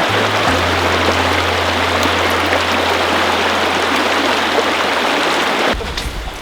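Creek water rushing steadily over rocks, with a steady low hum underneath; both cut off abruptly near the end.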